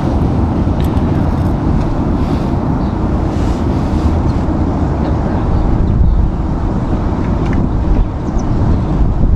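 Wind buffeting the microphone: a loud, unsteady low rumble.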